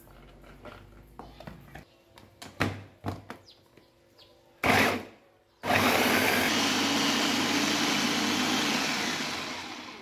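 A few light knocks, then an electric mini food chopper gives one short burst and runs steadily for about four seconds, grinding shallots, garlic and green chilies into a paste. The motor winds down near the end.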